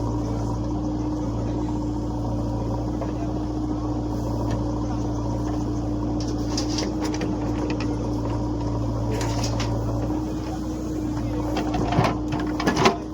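JCB backhoe loader's diesel engine running steadily while loading, dropping slightly about ten seconds in, with a few sharp metallic knocks near the end.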